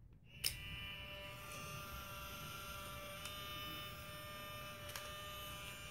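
Fujifilm Instax Mini instant camera fired with no film loaded: a shutter click about half a second in, then the camera's small film-ejection motor whirs steadily, with a faint click near the end.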